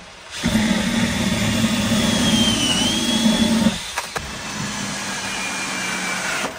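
Power drill driving screws up into a plywood shelf from underneath, running in two long steady runs, the second quieter than the first.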